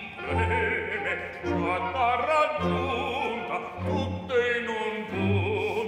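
Male operatic singing in Italian with orchestral accompaniment. A low chord in the orchestra is repeated roughly once a second under the voice.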